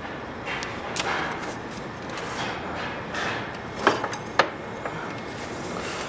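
Metal clicks and knocks with rustling as a scooter's front end is lowered onto its front wheel while the wheel, spacer and brake rotor are held in line; two sharp clicks stand out about four seconds in.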